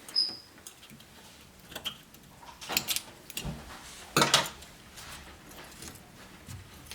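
A short high squeak at the start, then a few scattered knocks and clatters of objects being handled, the loudest about four seconds in.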